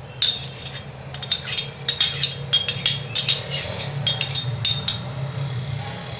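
Metal spoon clinking and scraping against a ceramic dish as thick yogurt is scooped out, a run of sharp irregular clinks, over a steady low hum.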